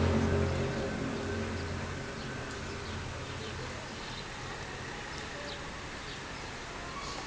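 A low, steady droning hum with several overtones, of the kind reported as a strange sky sound, fades away over the first two seconds. Faint outdoor background noise remains, with a few short high chirps.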